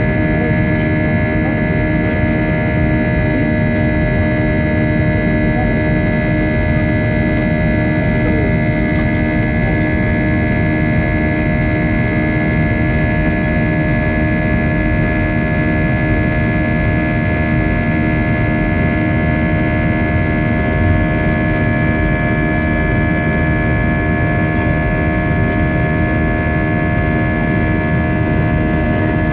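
Steady drone inside the cabin of an Airbus A320-232 in flight: its IAE V2500 engines running and the airflow rushing, with several steady humming tones held over a deep even roar.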